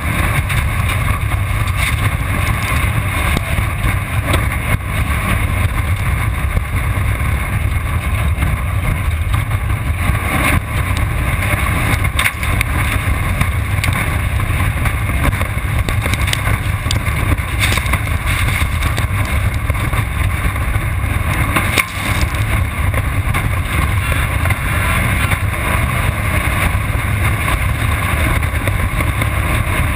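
Off-road race car running at speed, heard from a camera mounted on the car: a steady, loud mix of engine, drivetrain and wind noise, with a few sharp knocks along the way.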